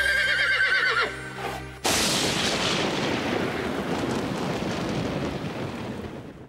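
A horse's whinny, wavering and falling in pitch, over held notes of music. About two seconds in, a sudden loud crash breaks in and rings out, fading slowly.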